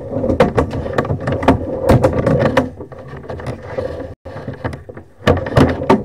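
Sewer inspection camera's push cable being drawn back through the line, with irregular clicks and knocks over a steady low rumble and hum. The sound cuts out for an instant about four seconds in.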